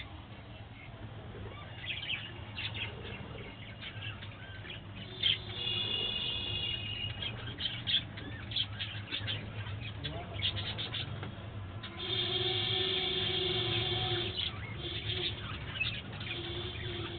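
Budgerigars chirping and chattering: many short, high chirps, with a longer held call about twelve seconds in that lasts some two seconds.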